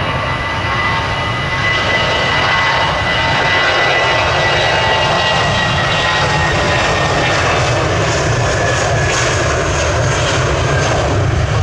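Jet airliner engines running at high power: a steady loud rush with a high whine that slowly falls in pitch.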